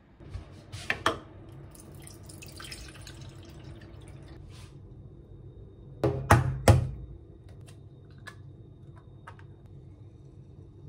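Eggs knocked against the rim of a clear plastic measuring jug and broken into water. There are two sharp knocks about a second in and a few seconds of splashing water, then three quick, loud knocks about six seconds in, followed by a few small ticks.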